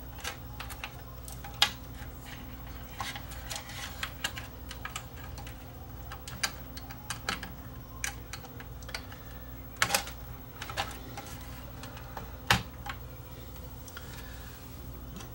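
Irregular light clicks and taps of small plastic wire connectors being handled and pushed onto the circuit board of an opened cassette deck, joining the tape heads to the preamp. A few sharper clicks stand out, about one and a half, ten and twelve seconds in.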